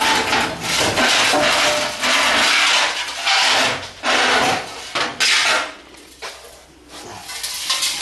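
Power tool cutting through the old steel exhaust pipe, in long bursts with brief pauses. It eases off for about a second and a half near the end, then starts again.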